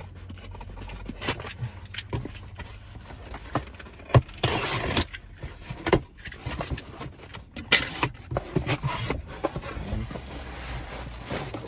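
Knocks, clunks and rustling from a large cardboard delivery box being handled, with a sharp knock about four seconds in and a few short rustling bursts, over a low steady hum such as a car's.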